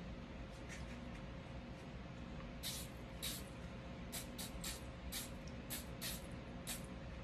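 Aerosol spray can hissing in about nine short bursts into a pistol frame, starting a little under three seconds in; the first two bursts are longer than the rest.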